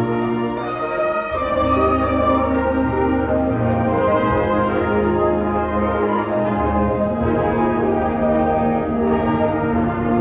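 A student concert band of woodwinds and brass playing a piece, with sustained chords that change every second or so over held low bass notes.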